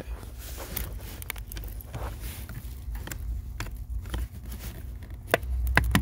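Fingers prying at a plastic under-dash fuse box cover: scattered light plastic clicks and scraping, with a few sharper clicks near the end as the cover works loose.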